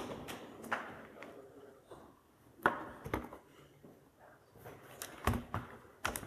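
Scattered clicks and knocks from equipment being handled at a lectern with a live microphone, with a sharp click about two and a half seconds in and a heavier knock a little after five seconds, over faint room murmur.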